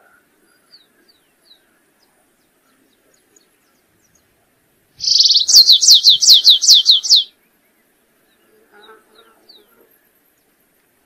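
Canário-rasteiro (stripe-tailed yellow-finch) singing once, about halfway through: a short buzzy note followed by a quick run of about nine high, down-slurred notes, some two seconds in all. A few faint, thin high notes come before and after the song.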